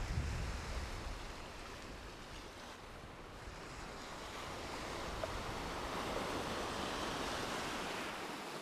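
Small sea waves washing and breaking over the shallows, with a wave surging through foam, loudest from about five to eight seconds in. A gust of wind rumbles on the microphone at the start.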